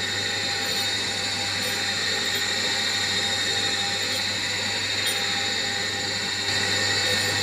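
Surface grinder running: a steady motor and spindle hum with a high hiss as the freshly balanced grinding wheel passes over a hardened steel block on the traversing table. It gets a little louder near the end.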